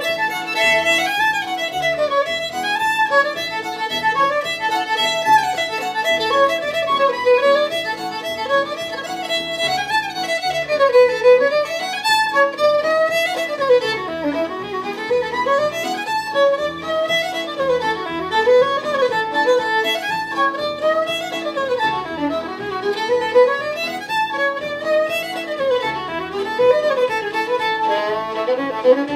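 Solo fiddle playing a fast fiddle tune: quick runs of notes climbing and falling, with a steady lower string droning underneath.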